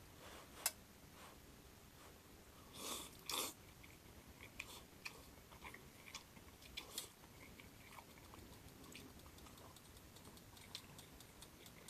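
A person chewing and eating grilled beef bulgogi, with many small clicks and ticks of the eating. A sharp click comes under a second in, and two louder bursts come around three seconds in.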